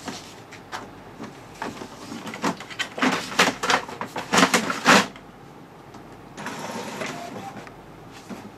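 HP Officejet Pro 8100 inkjet printer's mechanism working: a run of quick clicks and knocks that grows denser and louder, stopping about five seconds in, then a short whir lasting about a second.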